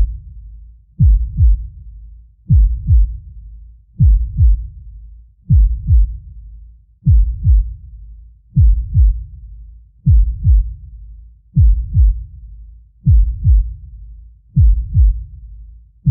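Deep heartbeat sound effect: a slow, steady lub-dub, two low thumps about half a second apart, repeating roughly every one and a half seconds (about 40 beats a minute).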